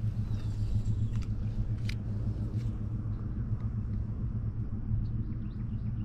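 Steady low rumble, with a few sharp clicks as a spinning rod is cast and its reel worked, and faint bird chirps.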